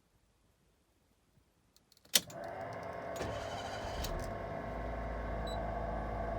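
A click about two seconds in, then the Daihatsu Move's AC blower fan motor starts and runs steadily with a whine and a low hum. The owner says this blower makes a loud abnormal noise.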